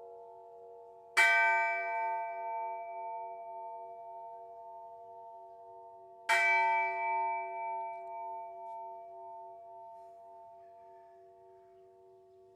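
A church bell struck twice, about five seconds apart, each stroke ringing on with a slowly pulsing hum as it fades away.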